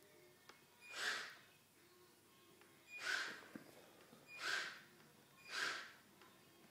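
Small toy tank robot's geared electric drive motors whirring in four short bursts of about half a second each, as it is driven in short stepped moves across a wooden floor.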